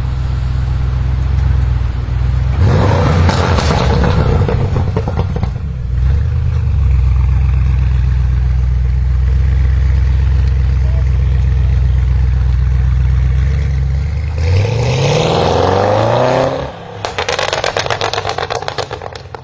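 Audi RS6 Avant C8's twin-turbo 4.0 V8, Stage 2 tuned with a Capristo exhaust and the OPF deleted, idling low and steady with a short burst of throttle about three seconds in. Near the end it is revved with a clearly rising pitch, then a rapid string of crackles and pops follows as the revs drop.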